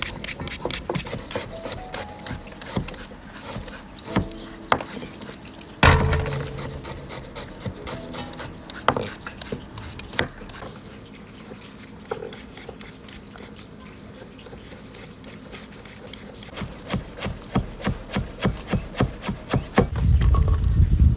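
Kitchen food preparation: quick repeated scraping and tapping strokes of a utensil. There is one loud knock about six seconds in and a faster, steadier run of strokes near the end.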